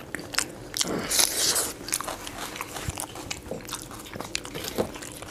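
Close-miked eating sounds: two people chewing mouthfuls of rice with egg masala and dal, and fingers mixing the food on steel plates. The sound is a run of many short wet clicks with a few brief louder mouth noises, the loudest about a second in.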